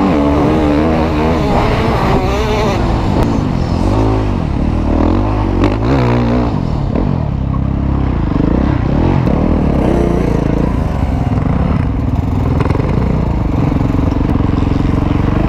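Husqvarna 450 motocross bike's single-cylinder four-stroke engine under hard riding, its pitch rising and falling repeatedly as the throttle is worked and the gears change. In the second half it holds a steadier note.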